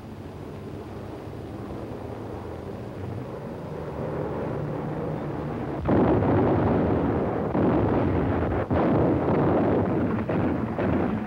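Anti-aircraft guns firing a dense barrage on a 1940s film soundtrack. A low rumble grows louder over the first half, then about six seconds in it breaks into continuous gunfire and shell bursts, with single sharp reports standing out near the end.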